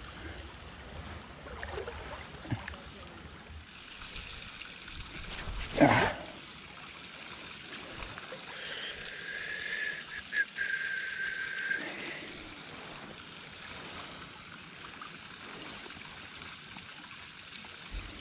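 Elk Creek's water running steadily over the stream bed. About six seconds in there is one sudden loud burst, and from about nine to twelve seconds a thin, high, steady tone.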